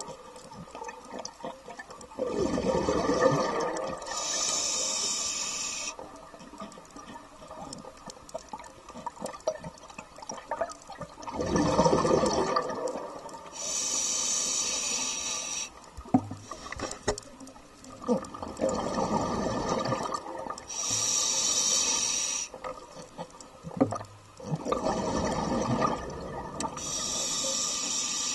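A scuba diver's breathing heard underwater through the regulator, four slow breaths. Each one is a burst of exhaled bubbles, then a hissing inhale through the demand valve. A few faint clicks fall between breaths.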